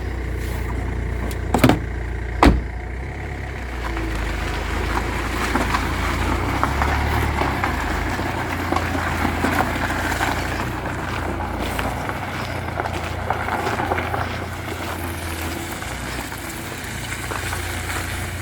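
Car moving on the road, heard from inside the cabin: steady engine and tyre rumble with road hiss. Two sharp knocks come about two seconds in.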